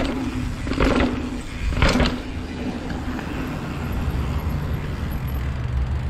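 Custom titanium hardtail mountain bike riding down paved stone steps: a couple of sharp thumps about a second apart as the tyres drop down the steps in the first two seconds, then a steady low rumble of the tyres rolling over paving.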